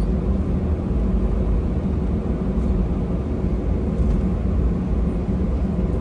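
Steady deep engine rumble and air noise of an airliner heard inside the passenger cabin, with a faint steady hum over it.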